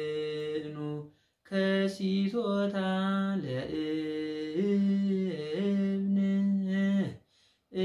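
A man's solo voice chanting an Orthodox Tewahedo hymn (mezmur) unaccompanied, in long held notes that step up and down in pitch. There is a breath pause about a second in and another near the end.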